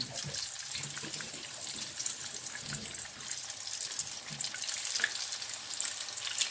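Cassava fritters sizzling and crackling steadily in hot oil in a frying pan as they are turned over with a silicone spatula, with a faint click about five seconds in.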